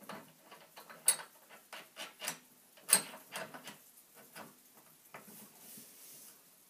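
Irregular small metallic clicks and taps as a scooter wheel is fitted onto its axle bolt at the hub by hand. Two sharper clicks stand out, about a second and three seconds in.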